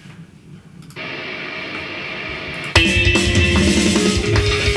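Rock song playing: a sustained wash of electric guitar comes in about a second in, then drums and guitar enter together with a sudden jump in loudness near three seconds in.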